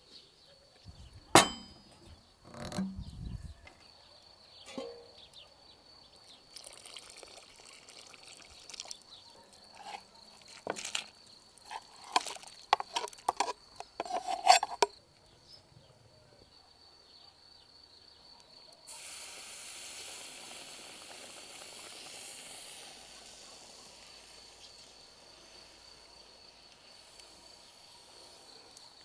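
Metal utensils clinking against a cast-iron pan as fish pieces are scraped into simmering broth, after a sharp knock early on. About two-thirds of the way in, a steady hiss starts and lasts about nine seconds as a smouldering, charred piece of firewood is held in the hot fish broth.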